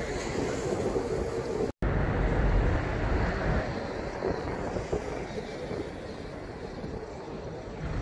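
Outdoor city ambience: a steady wash of distant street traffic with low rumble, broken off sharply by an edit a couple of seconds in, then continuing as open-square background noise.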